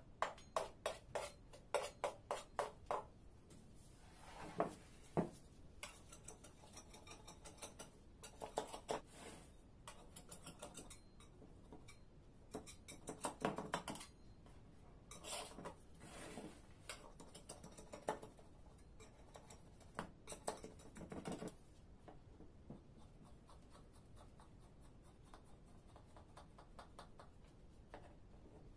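Knife scraping against the rim of a metal baking tray and through layered phyllo dough, in short runs of scratchy strokes. The strokes die down to faint light scratching for the last several seconds.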